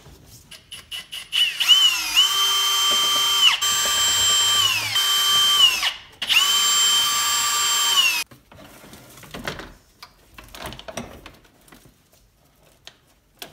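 Cordless drill/driver running in three bursts of about two seconds each, a steady whine that drops in pitch as each run stops, backing out the screws that hold the factory radio in the dash. Afterwards, light clicks and rattles as the loosened radio is handled.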